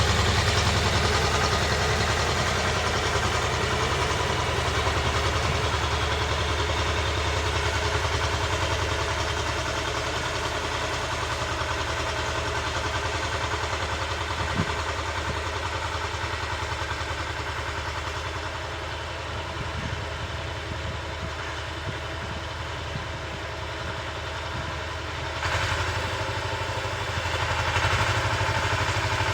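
Tractor engine running steadily while driving a rotary tiller through the soil. It fades somewhat in the middle and grows louder again in the last few seconds.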